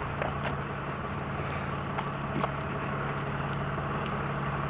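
Tow truck engine running steadily at low speed, a constant low hum, with a couple of faint clicks about two seconds in.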